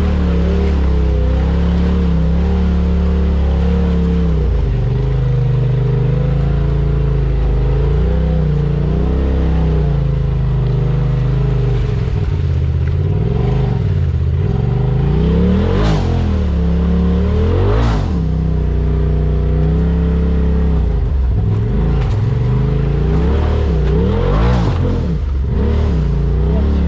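Side-by-side UTV engine running on the trail, its pitch rising and falling with the throttle, with several quick sharp revs in the second half.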